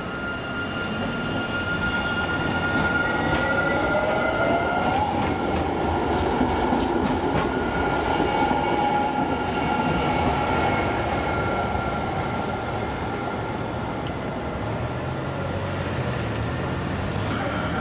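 Electric rail vehicle of the Rotterdam RET network running, with a thin steady whine and a tone that rises in pitch a few seconds in.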